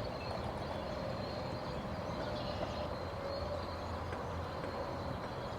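Steady background hum and hiss with faint steady tones, no distinct knocks or clicks.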